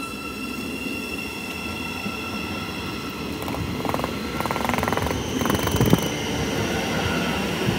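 Thameslink Class 700 electric multiple unit standing at the platform, its electrical equipment giving a steady whine of several high tones over a low rumble. A burst of rapid clicking comes in about halfway through.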